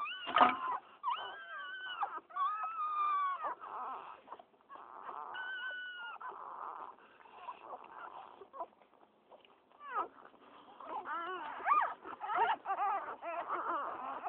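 Newborn pit bull puppies squealing and whimpering in high, wavering cries, several overlapping near the end. A brief bump sounds about half a second in.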